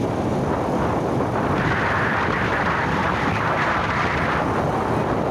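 Wind rushing over a phone microphone on a moving motorcycle, with road and engine noise underneath. A brighter hiss swells up for about three seconds in the middle.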